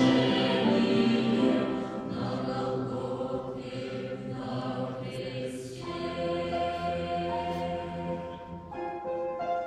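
Church choir singing a slow Russian hymn in long-held chords. The singing is loudest in the first second or so, then softer, with a fresh chord entering near the end.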